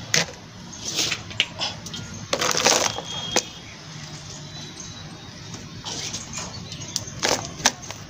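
Hands pressing and working potting soil into a plastic tub around a newly set plant: irregular scrapes and rustles with a few sharp clicks, the longest scrape about two and a half seconds in.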